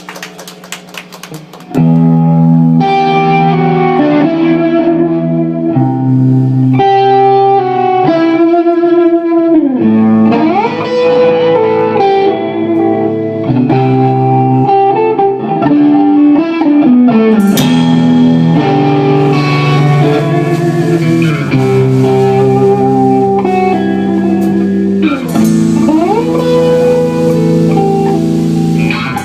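A live band playing, led by guitar, the music starting loudly about two seconds in, with notes sliding up and down in pitch.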